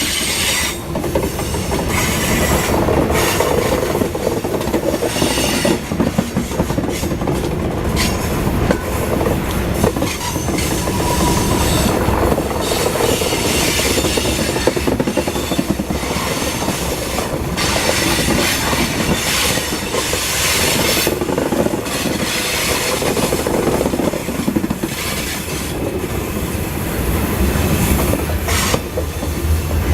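Freight cars of a grain train rolling past, steel wheels clicking over rail joints and squealing at times.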